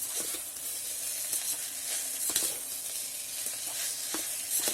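Vermicelli with onions and spices frying in oil in an electric kettle, sizzling steadily, while a spoon stirs it and scrapes against the pot several times, the loudest scrape about halfway through.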